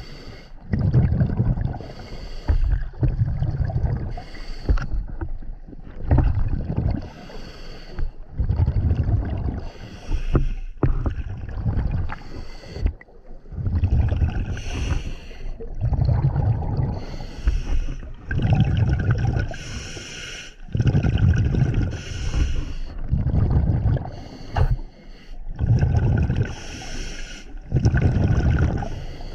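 Scuba diver breathing through a regulator underwater: hissing inhalations alternating with low bubbling bursts of exhaled air, repeating every couple of seconds.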